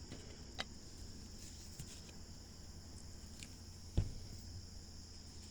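Faint steady high-pitched chirring of crickets, with a few light knocks, the loudest about four seconds in.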